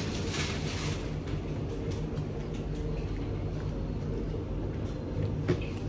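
Steady low background hum, with a few faint short clicks or rustles near the start and just before the end.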